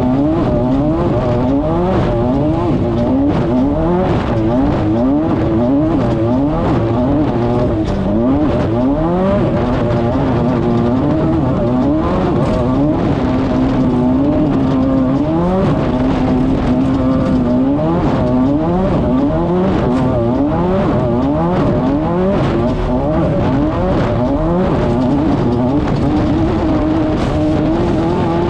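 Class 5/1600 off-road race car's 1600 cc air-cooled VW flat-four running at race pace. Its revs climb and fall back about once a second, over and over, with a few seconds of steady revs about halfway through.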